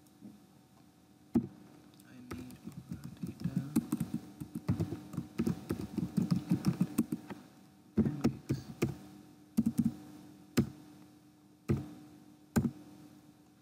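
Typing on a computer keyboard: a quick run of keystrokes from about two to seven seconds in, then single sharp clicks roughly a second apart, over a faint steady hum.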